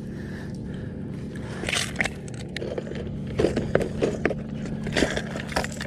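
Boat motor running with a steady low hum, with irregular knocks and clattering from about two seconds in.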